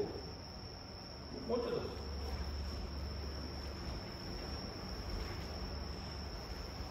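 Quiet room with a steady high-pitched insect trill, like crickets, over a low hum.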